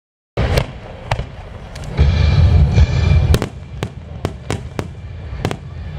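Fireworks display: a rapid string of sharp bangs from bursting shells over a deep rolling rumble, loudest about two to three seconds in. The sound cuts in abruptly after a split second of silence.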